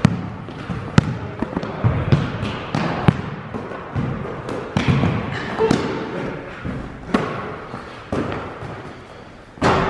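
Basketball bouncing on a gym floor in dribbles and passes: irregular sharp thuds, sometimes two or three in a second, echoing in the hall.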